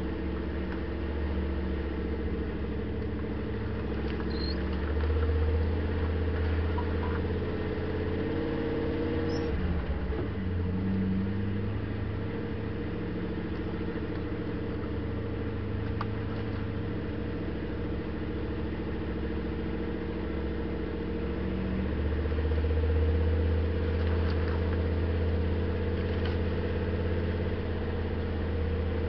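Land Rover Series IIA engine running steadily as the vehicle drives along a dirt track, its note shifting about ten seconds in and swelling louder twice, briefly early on and for several seconds near the end.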